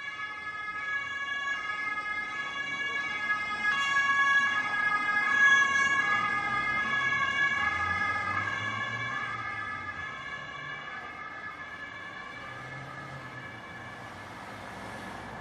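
Ambulance two-tone siren, switching back and forth between two pitches, growing louder to a peak about five seconds in and then fading away as it passes.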